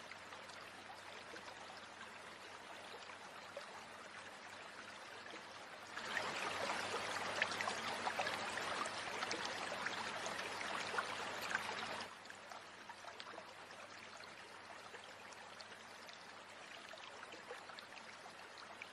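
Forest stream running steadily, with a stretch of several seconds in the middle where it is much louder, starting and stopping abruptly.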